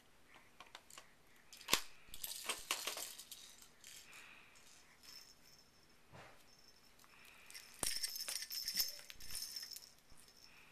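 Baby toys being handled: a few sharp knocks and clatters of plastic toys, then about eight seconds in a stretch of high-pitched rattling, like a rattle toy being shaken.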